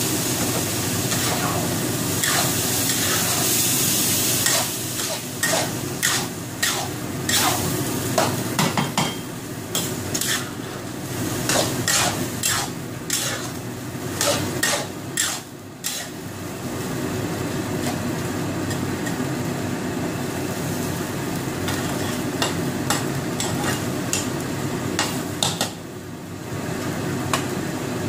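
Rice mixture sizzling in a wok just after the mushroom soaking water has gone in. A metal spatula scrapes and clacks against the wok in many quick strokes while it is stirred through the middle of the stretch, and the sizzling carries on steadily once the stirring stops.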